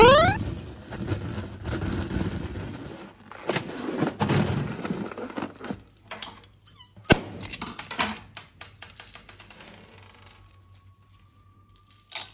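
A loud rising squeak of a rubber balloon right at the start, then slime squelching and crackling as it is squeezed and worked by hand, with scattered sharp clicks that thin out towards the end.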